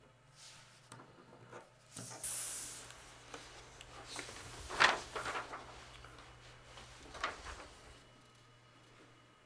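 A sheet of paper and a pen handled on a table: a papery rustle about two seconds in, then a sharp tap about halfway through and a few lighter handling clicks, over a faint low room hum.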